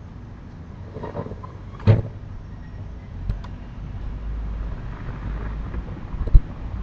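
Two sudden bangs about four and a half seconds apart, the second the loudest, over a steady low rumble, with a softer knock just before the first.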